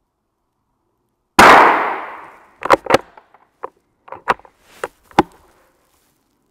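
A single shot from a bolt-action .22 rimfire rifle firing subsonic Browning Pro 22 ammunition, about a second and a half in, ringing out over about a second. The bolt is then worked open and closed, a run of short, sharp metallic clicks over the next few seconds.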